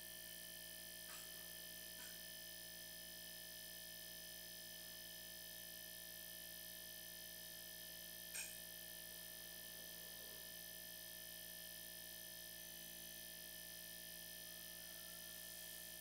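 Faint, steady hum with several held tones from a running refrigerator compressor, used here as a pump to blow air through the opened refrigerant line and purge moisture. A brief faint tick about eight seconds in.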